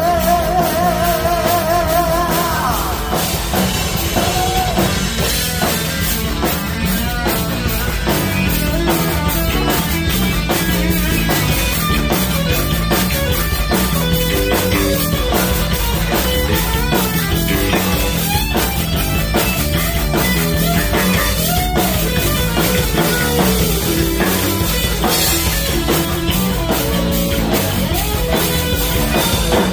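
Heavy metal band playing: distorted electric guitar over a pounding drum kit and bass. In the first few seconds a lead guitar holds notes with wide, wavering vibrato.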